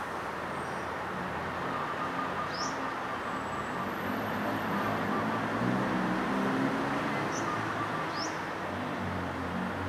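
Steady hum of city road traffic with a low engine drone that swells a little mid-way. Three brief, high, rising bird chirps sound over it: one about two and a half seconds in and two near the end.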